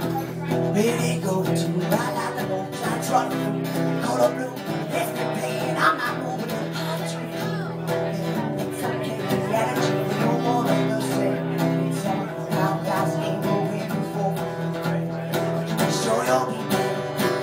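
Acoustic guitar strummed steadily through a live song, with a man's singing voice over it at times.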